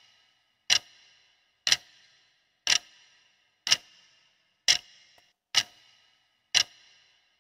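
Clock-tick sound effect counting down the seconds of a quiz answer timer: one sharp tick each second, each with a short ringing tail.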